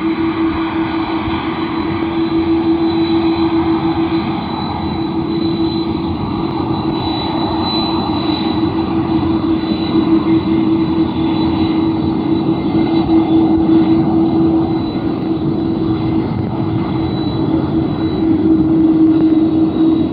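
Jet airliner engines running steadily: a continuous rushing drone with a constant pitched hum through it and a faint high whine above, swelling and easing a little.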